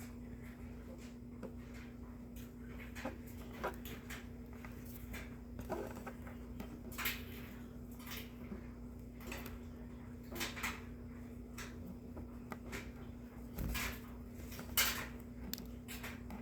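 Trading cards being handled and flipped through by hand: scattered soft clicks, taps and rustles of card stock, over a steady low hum.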